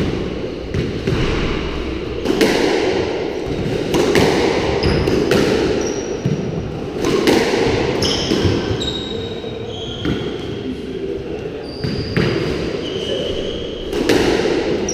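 Squash rally: the ball struck by rackets and smacking off the court walls every second or so, echoing, with many short high squeaks of shoes on the wooden floor.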